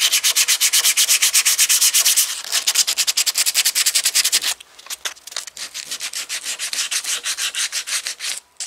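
Hand sanding with 180-grit sandpaper over cured polyester glazing putty on a car body panel, smoothing the filled repair. Quick, even back-and-forth scraping strokes, about six a second, that turn quieter and less regular about halfway through.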